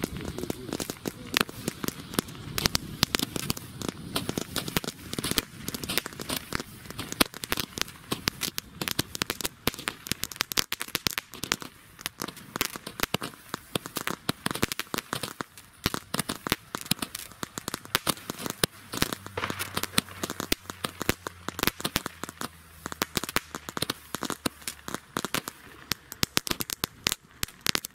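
Fireworks crackling: a dense, uneven stream of small sharp cracks and pops, with louder bangs scattered through.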